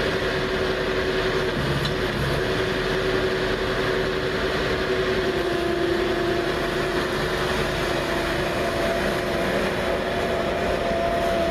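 Skid steer running steadily, driving a hydraulic broom attachment, with a steady whine that drops slightly in pitch a few times.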